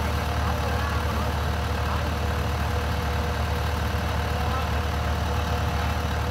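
Kubota DC-105X combine harvester's diesel engine running steadily at an even low hum.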